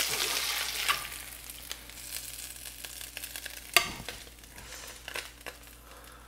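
Butter and bacon grease sizzling in a cast iron skillet as a metal spatula slides under a walleye fillet and lifts it out. The sizzle is loudest in the first second, then fades to a faint hiss, with one sharp clink about four seconds in.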